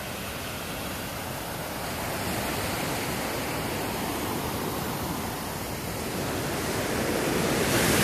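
Small ocean waves breaking and washing up onto a sandy beach: a steady rushing hiss of surf that grows gradually louder toward the end.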